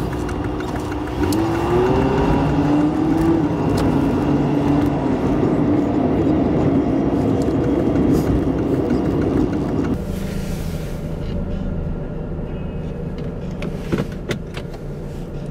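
Chevrolet Cavalier's engine and road noise heard inside the cabin while driving, the engine's pitch rising as it picks up speed about a second in. About ten seconds in the noise drops sharply as the car slows, and a couple of clicks follow near the end.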